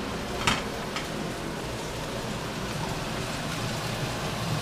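Hamburger patties frying in pans, a steady sizzling hiss, with two light taps of the spatula against a pan about half a second and a second in.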